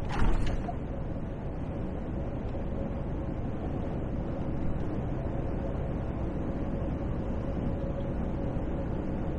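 Steady in-cab drone of a highway truck running on a wet road, engine and tyre noise, with a faint steady whine. A short loud knock sounds just after the start.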